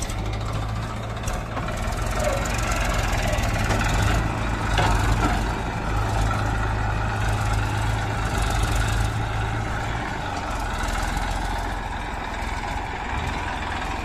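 Diesel engines of a JCB 3DX backhoe loader and a Massey Ferguson tractor running together, with loose soil pouring from the backhoe bucket into the tractor trolley. The tractor engine then pulls the loaded trolley away, its low engine note shifting partway through.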